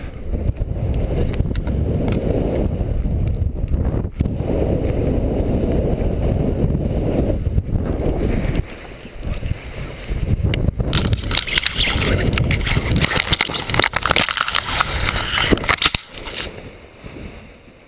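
Wind buffeting a paraglider pilot's helmet-camera microphone as he spins down, with the reserve parachute thrown. It is a loud low rumble at first; about eleven seconds in it turns into a harsher, higher rushing hiss, and it drops away near the end.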